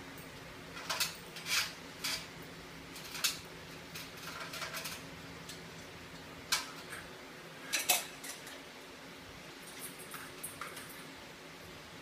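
Metal tools and ceiling-fan mounting hardware being handled overhead: scattered sharp clinks and clicks, the loudest a single clink about six and a half seconds in and a quick double clink about eight seconds in.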